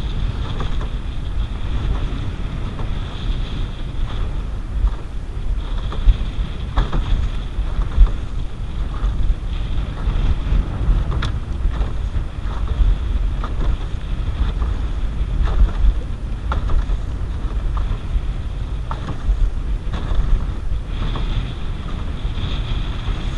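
Strong wind buffeting the microphone in a steady low rumble, with short splashes and knocks of choppy water slapping against a canoe now and then.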